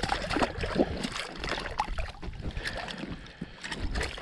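A freshly landed trout being handled on wet, slushy ice: irregular wet knocks and slaps with some splashing.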